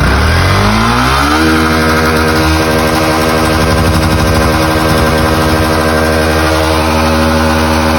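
Yamaha single-cylinder motorcycle engine revved up over about the first second and a half, then held at steady high revs. The engine has about 240,000 km on it and burns oil without smoking.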